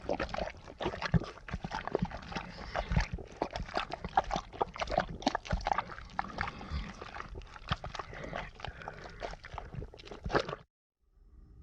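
Horror sound effect made of a dense, irregular run of short clicks and noises that stops abruptly about ten and a half seconds in. Just before the end a different effect with steady tones begins.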